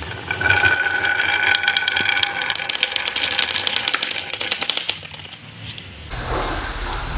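Marbles clattering down a plastic marble-run track: a dense, rapid rattle of clicks with a faint ringing. It stops abruptly about six seconds in and gives way to a duller low rumble.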